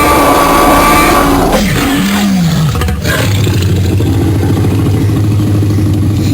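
Dinosaur roaring and growling sound effects: a loud roar that bends up and then down about two seconds in, then a long, low, steady growl.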